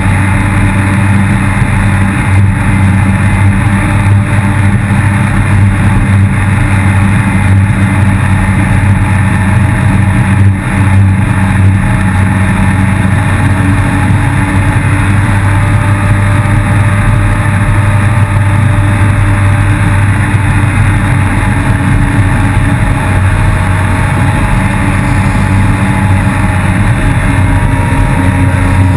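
Yamaha FX160 HO jet ski engine running hard and steady, with water rushing under the hull. The level dips briefly about ten seconds in.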